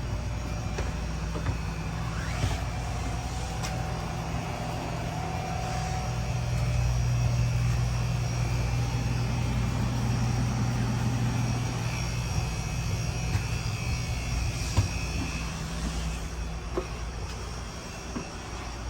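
Steady low hum of a stationary passenger rail car's ventilation and onboard power, swelling for a few seconds midway, with a few faint clicks and knocks.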